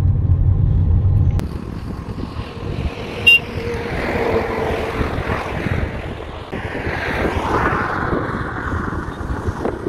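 Low road rumble inside a moving car, then an abrupt change about a second and a half in to a steady rush of wind noise on the microphone. A brief high beep sounds about three seconds in.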